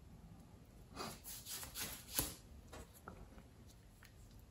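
Close-up handling noises of hands working small model parts and thin brass wire: a short run of rubbing and scraping between about one and three seconds in, with one sharp click near the middle.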